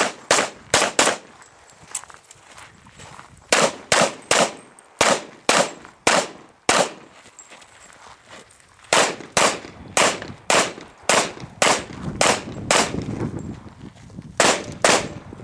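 Pistol shots fired in a practical-shooting course of fire: about twenty sharp shots in quick strings, about half a second apart, with pauses of one to two seconds between the strings.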